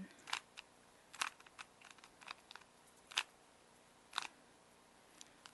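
Rubik's Cube being scrambled: its plastic layers are twisted and click as they turn. The clicks come irregularly, four sharper ones about a second apart with lighter ticks between them.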